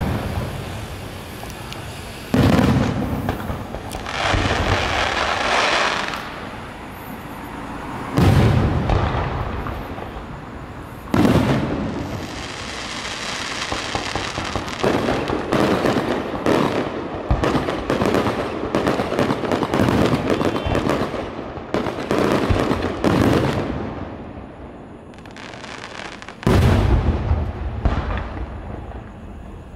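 Aerial fireworks shells bursting in the sky: four heavy booms spaced several seconds apart, with stretches of rapid crackling and popping between them.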